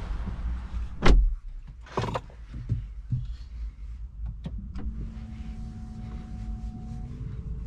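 Car door shutting with a heavy thud about a second in, cutting off the outside noise, followed by a few clicks and knocks in the cabin. Steady humming tones start about five seconds in.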